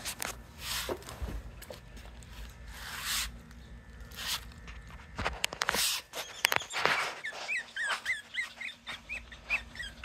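Young Pomeranian puppy whimpering in a run of short, high squeaks, several a second, starting about seven seconds in, after scuffing and rustling noises.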